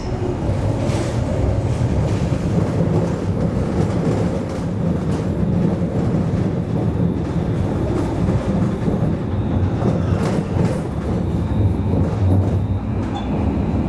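Alstom Citadis tram running on rails, heard from inside the cab: a steady low rumble of wheels and running gear, with a couple of faint clicks as the wheels roll over track joints and crossings.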